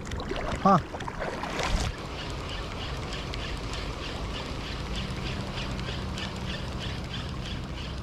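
Spinning reel (Daido Dark Knight 2000) being cranked on a retrieve, a soft tick repeating about two and a half times a second with each turn of the handle. Behind it are wind and water noise, and a low steady hum comes in about halfway through.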